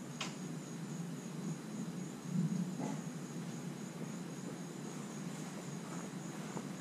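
Outdoor insect chirring, a faint high trill pulsing evenly, over a steady low background noise. There is a small click just after the start and a brief low bump about two and a half seconds in.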